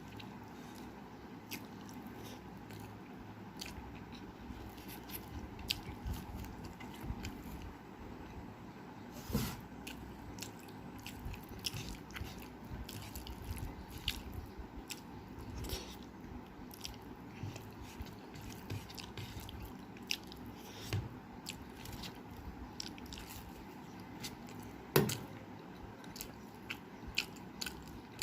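Close-miked chewing of rice and dal: steady wet mouth sounds with frequent small lip smacks and clicks, one sharper click about nine seconds in and the loudest about twenty-five seconds in.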